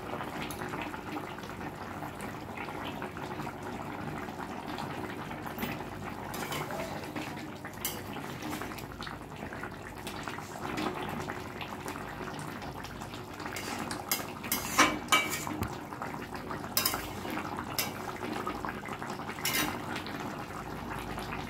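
Fish curry simmering and bubbling in a metal kadai, with a flat metal spatula clinking and scraping against the pan several times, mostly in the second half.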